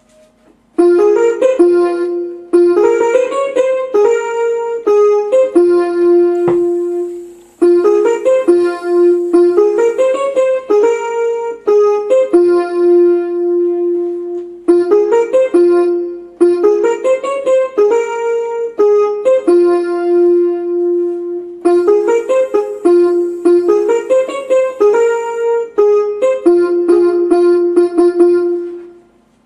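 Portable electronic keyboard being played: a short phrase of several notes over a held lower note, repeated four times at about seven seconds each. It starts about a second in and stops just before the end.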